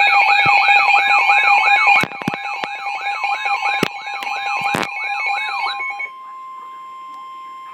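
Emergency alert attention signal: electronic tones warbling up and down about twice a second over steady tones, with a few sharp clicks. About six seconds in it gives way to a single steady alarm tone announcing a tornado warning.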